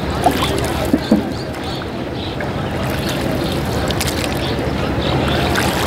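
Rowboat moving on the river: a steady rumble of wind and water, with a few short knocks about a second in.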